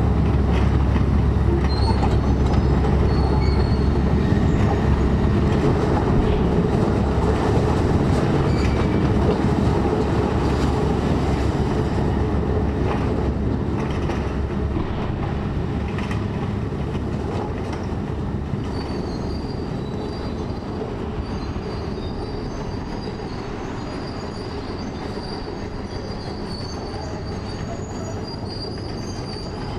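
Heavy diesel site machinery giving a steady low rumble that slowly fades away, with thin high metallic squeals coming in during the second half.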